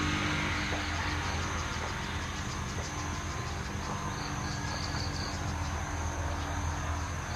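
Insects chirring steadily over a low, steady hum, with a short run of quick faint chirps a little past halfway.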